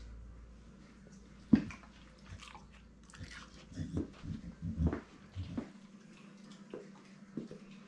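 A dog chewing and gnawing on a treat: irregular crunches and clicks, one sharp crunch about a second and a half in and a run of them in the middle.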